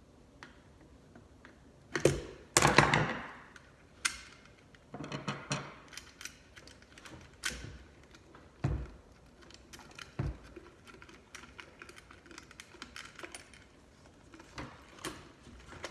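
Hand-work handling noise on a garbage disposal's wiring: scattered clicks, light knocks and short rattles of small metal parts and tools. A louder rattling cluster comes about two to three seconds in, and there are single knocks later.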